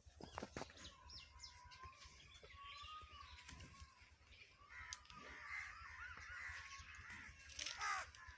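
Faint outdoor birdsong with scattered chirps, then a crow caws near the end.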